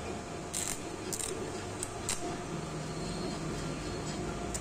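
Stick-welding arc crackling in a few short bursts as the electrode is struck on a seized wheel-hub bearing race. The weld is laid on the race to loosen it for removal. A low steady hum comes in about halfway through.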